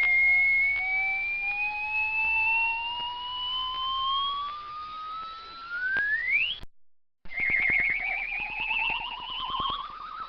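Slide whistle gliding slowly upward for about six and a half seconds, then sweeping sharply up at the end. After a brief break it rises again with a fast flutter, about ten pulses a second, and is sweeping up once more as it ends.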